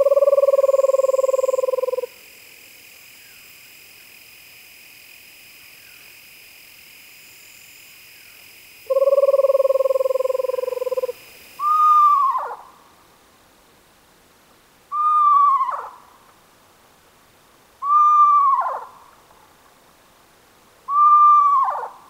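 Eastern screech owl calls: two long, even trills of about two seconds each, then four shorter calls about three seconds apart, each held on one pitch and then dropping sharply at the end.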